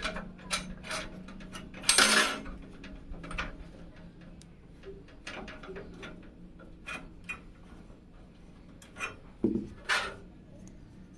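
Hard parts being handled: scattered clicks and knocks, with a longer scrape about two seconds in. A faint steady low hum runs underneath.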